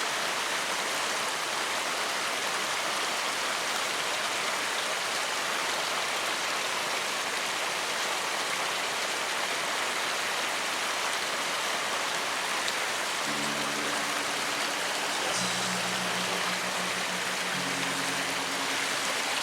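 Steady rushing of flowing water from the stream channel. Low sustained music notes come in about two-thirds of the way through.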